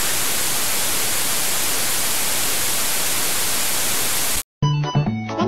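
A steady hiss of white noise, like TV static, that cuts off suddenly about four and a half seconds in. Music with a repeating beat starts right after.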